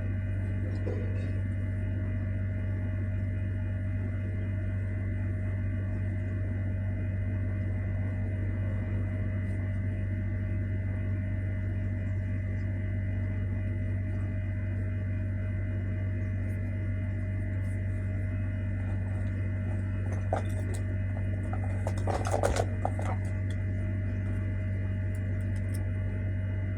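Hair dryer running steadily: an even motor hum with a low drone and a fainter higher whine. A few light clicks and a short rattle come about twenty-two seconds in.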